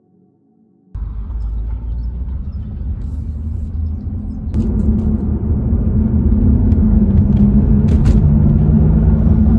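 BMW 335i's N55 turbocharged inline-six running with an aftermarket CTS Turbo intake while the car drives; the engine sound cuts in about a second in and gets louder about four and a half seconds in.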